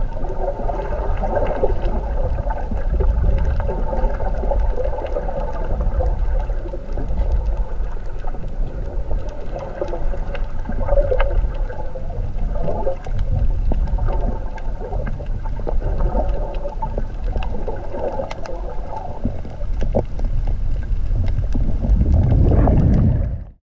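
Underwater sound picked up by a camera below the surface while snorkelling: a steady low rumble and swish of moving water with a scattering of faint clicks. It cuts off suddenly near the end.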